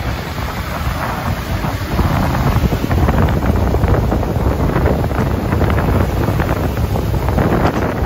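Storm surf breaking and washing up a pebble beach, with wind buffeting the microphone. It grows louder about two seconds in.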